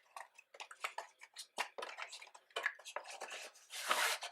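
Packaging being handled: a run of small clicks and rustles as a little silvery box is opened, with a longer rustle near the end as its contents come out.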